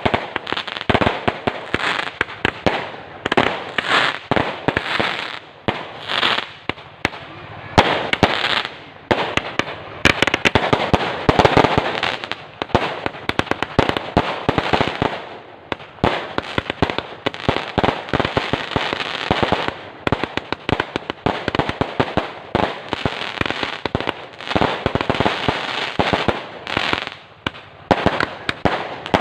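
Fireworks going off: dense, irregular volleys of sharp bangs and crackles in clusters a second or two long, with no pause.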